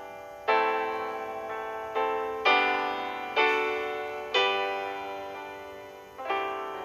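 Slow, gentle piano music: soft chords struck every second or two, each left to ring and fade.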